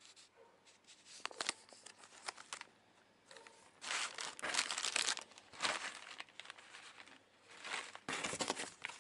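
Thin plastic packaging bags crinkling as they are handled, in irregular bursts, loudest about four to five seconds in and again near the end.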